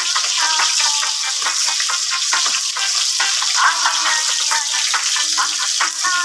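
Sliced onions sizzling and crackling in hot oil in a metal wok, stirred with a wooden spoon.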